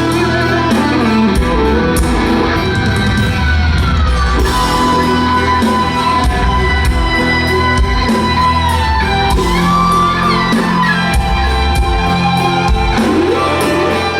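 Live rock band playing loudly: drums and bass under an electric-guitar-led melody of long held notes that slide and waver in pitch.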